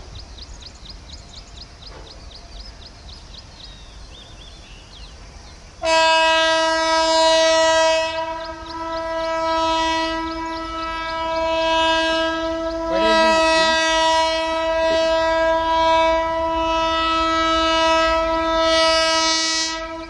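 WAG-9 electric locomotive's horn sounding one long, steady blast of about fourteen seconds, starting abruptly about six seconds in and cutting off at the end.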